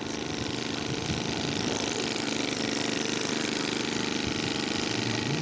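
Radio-controlled scale model airplane engine running steadily in flight, slowly getting louder.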